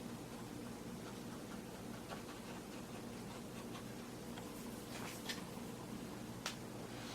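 Faint handling noise of fingers pressing and nudging a freshly glued foam surround on a speaker cone: a few light ticks and rustles over a steady low hum.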